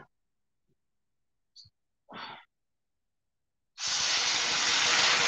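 Water poured from a kettle into a hot pan of browning rice, hitting it about four seconds in with a sudden loud sizzling hiss of steam that keeps going.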